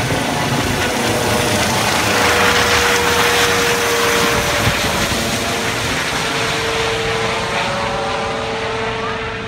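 MedSTAR medical helicopter flying directly overhead just after take-off, a steady turbine whine over the rotor noise. It is loudest a few seconds in as it passes above, then slowly fades as it flies off.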